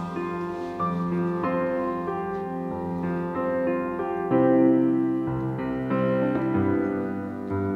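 Background instrumental music: a slow piano melody of held notes over low bass notes.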